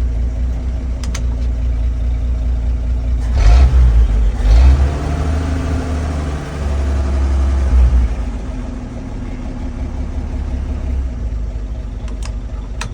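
1961 Chevrolet Apache 60 truck engine idling and revved up twice, first about three and a half seconds in and again around six to eight seconds, then dropping back to a steady idle. A few light clicks sound about a second in and near the end.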